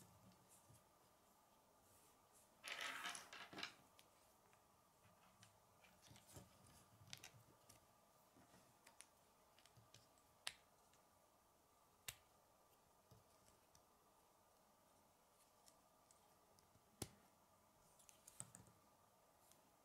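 Faint clicks and rattles of plastic K'nex pieces as the model is handled, with a short louder rattle about three seconds in and a few single sharp clicks later on.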